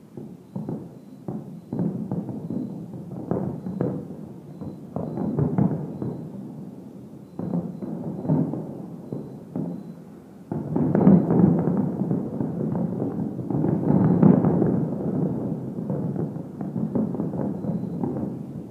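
Distant fireworks display: a string of aerial shell bursts, scattered at first, then a dense rapid barrage from about halfway through that thins out near the end.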